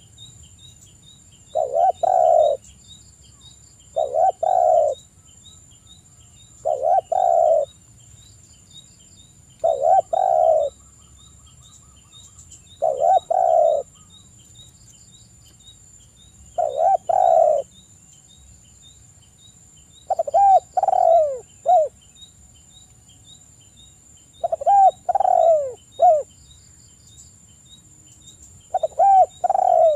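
Spotted dove cooing: a short phrase of low coos repeated about every three seconds, the later phrases broken into separate falling notes ending in a short last note. A faint steady high whine and quick regular ticking run underneath.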